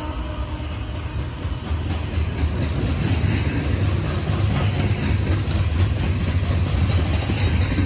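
Coal hopper cars of a freight train rolling past at close range: a steady rumble of steel wheels on rail, with light clicking from about three seconds in.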